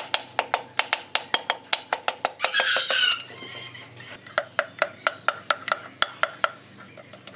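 Rapid metal hammering, about four sharp ringing blows a second with a short pause in the middle. A rooster crows briefly about two and a half seconds in.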